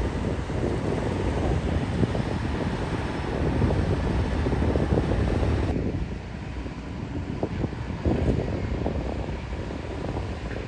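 Heavy diesel engine of an excavator running steadily. About six seconds in, the sound turns duller and a little quieter.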